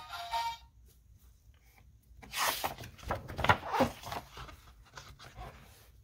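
Paper rustling and handling noise, like a page of a sound book being turned, in a cluster of scrapes about two to four seconds in. Just before it, the tail of a short music clip from the book's sound button cuts off.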